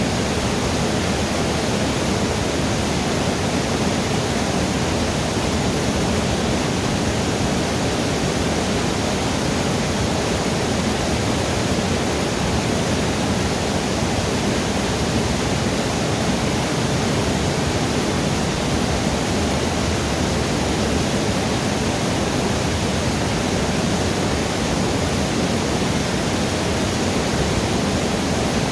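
River water rushing steadily over rocks, an even, unbroken noise with no distinct events.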